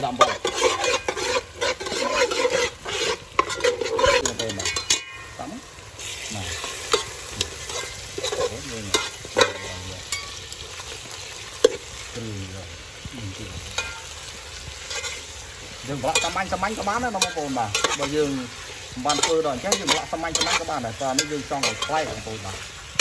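A metal ladle stirring, scraping and knocking against an aluminium pot while chilies, garlic and dark soy sauce sizzle in hot oil. Partway through, pork intestines are tipped in and stirred through the frying spices.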